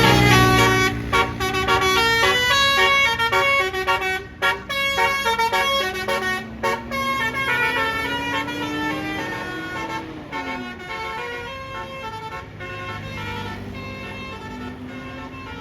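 Basuri bus horn, a multi-tone musical air horn, playing a fast tune of short stepped notes. Underneath, a lower tone rises slowly and then drops away about ten seconds in.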